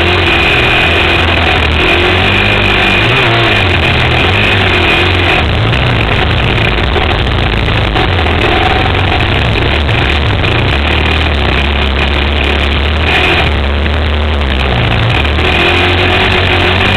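Suzuki Z400 sport quad's single-cylinder engine, heard close up from a camera mounted on the machine, revving up and down continuously as it is ridden through sand, under a steady rushing noise.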